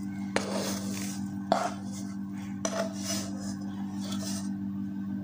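A metal spoon scraping and knocking on steel cookware as a crumbly mixture of roasted wheat flour, ghee and jaggery is emptied from the pan onto a steel plate. There are three sharp clinks about a second apart, with scraping between them.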